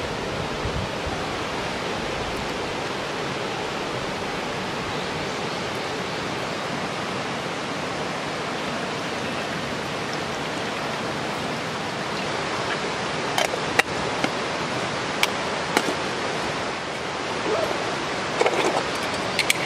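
Steady rushing outdoor background noise. In the second half, several sharp clinks of metal camp cookware and stove parts being handled.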